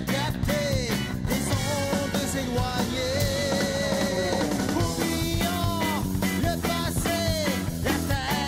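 Rock band playing a passage without words: drum kit and electric bass under a lead melody line that glides and bends in pitch.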